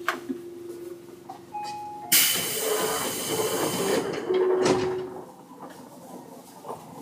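Tobu 9000 series commuter train: a sudden loud hiss of compressed air starts about two seconds in and lasts around two seconds, a pneumatic air release on the train, before settling back to a quieter background.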